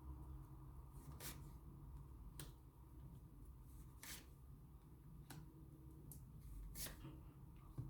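Tarot cards being shuffled and handled: a faint series of short, sharp card snaps and flicks, roughly one a second, over a low steady hum.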